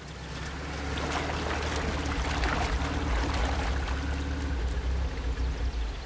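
Off-road truck engine running with a steady low rumble while the wheels splash and churn through muddy puddle water, the splashing building over the first second.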